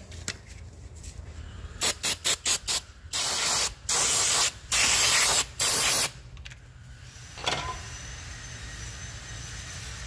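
Aerosol brake cleaner spraying: about five short spurts, then three longer sprays of about a second each, used to flush crusted debris off a skid steer's hydraulic pilot control valve.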